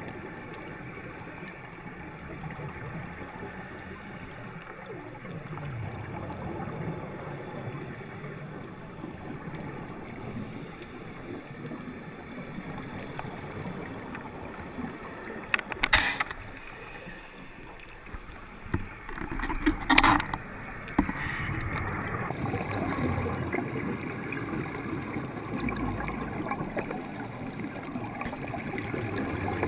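Muffled underwater rumble and bubbling from a scuba diver's regulator exhalations, heard through a GoPro's waterproof housing. Two sharp knocks come about halfway through, some four seconds apart.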